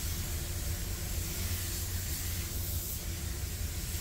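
SATA 5000 spray gun with a 1.3 tip spraying clear coat at about 30 psi: a steady hiss of compressed air, over a low steady hum.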